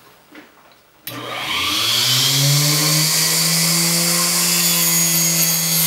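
4-inch Harbor Freight mini table saw switched on about a second in. Its small motor winds up to speed over about a second, then runs at a steady pitch, not slowing as a hot dog is pushed through the blade.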